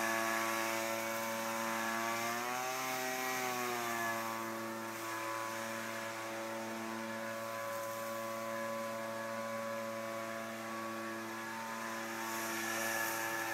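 A steady motor drone at one fixed pitch, rising and then falling in pitch once about two to three seconds in.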